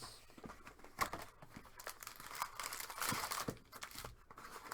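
Crinkling and tearing of trading card packaging being opened, with scattered sharp clicks and short rustles, one of the rustles longer, about three seconds in.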